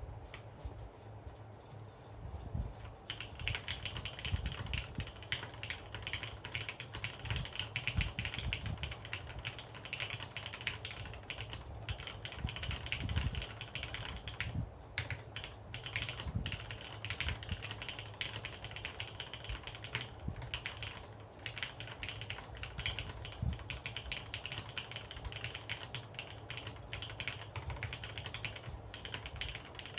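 Mechanical keyboard typing: Cherry MX Hyperglide Black linear switches under GMK keycaps on a carbon fibre plate, the board typed on without a desk mat. A few scattered keystrokes give way about three seconds in to fast, continuous typing, with a couple of short pauses.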